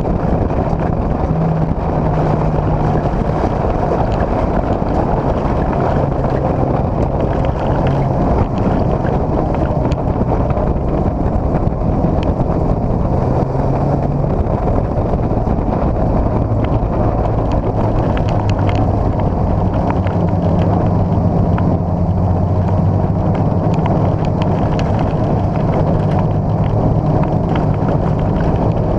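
Dirt-track race car's engine at racing speed, heard from inside the cockpit, its note rising and falling as the throttle comes on and off. Wind buffets the microphone over the engine.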